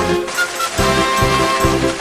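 Dramatic soundtrack music: sustained held tones over a regular pulsing low beat that comes in a little under a second in.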